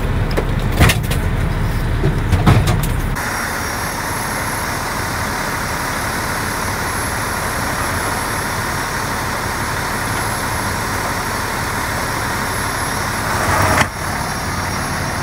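Fire engine running: a low engine rumble inside the cab with a couple of sharp knocks, then about three seconds in a steady engine noise heard outside beside the idling truck.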